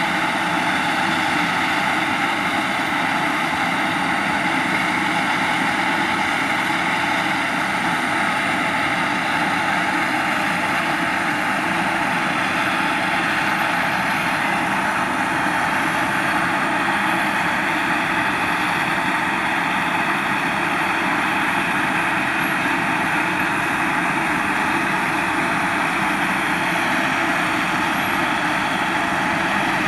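Steady, loud engine noise on a flight line: a rushing whine with several held high tones, unchanging throughout.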